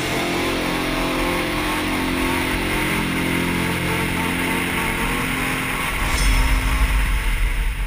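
Motorcycle engine running and revving, getting louder and deeper about six seconds in.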